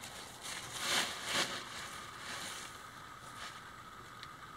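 Loose fiberglass insulation rustling as it is pressed by hand into the gap around a rocket stove's inner metal tube, with two louder rustles about a second in.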